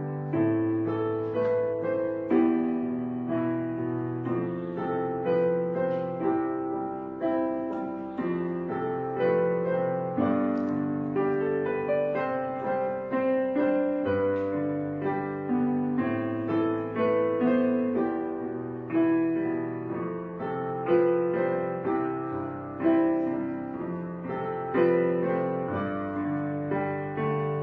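Background piano music: notes and chords struck and left to fade, one after another.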